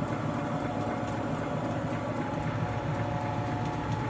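Steady mechanical hum of shop machinery running in the background, with a couple of steady tones over a low rumble.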